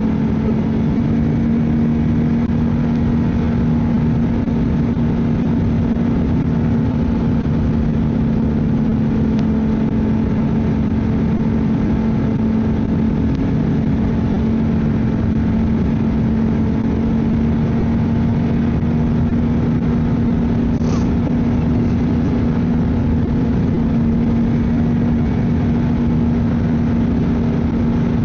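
Ski-Doo snowmobile engine running at a steady cruising speed along a trail, its note holding one pitch, with a brief faint click about three quarters of the way through.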